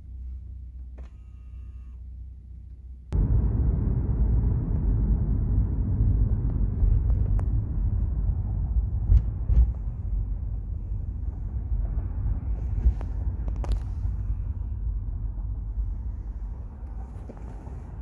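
Low rumble of road and traffic noise heard from inside a moving Maybach limousine. It is faint at first, jumps suddenly to a much louder rumble about three seconds in and stays loud, with a few small knocks.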